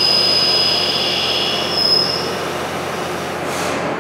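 CNC lathe parting the finished part off the bar stock, with coolant spraying. A steady high whine rises slightly and stops about two seconds in, leaving a continuous hiss.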